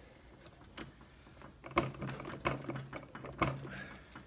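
Steel gears, shafts and shift forks of a Honda B-series five-speed transmission clicking and clinking against each other as the gear stacks are worked around to seat them in the case. Sharp metallic clicks come one after another, the loudest a little under two seconds in and about three and a half seconds in.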